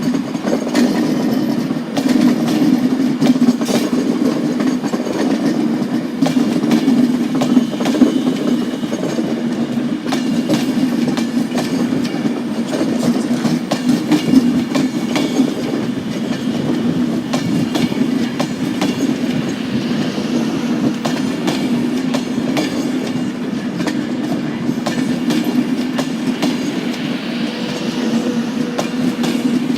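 Class 390 Pendolino electric train pulling out, a steady low rumble with its wheels clicking over rail joints and points throughout.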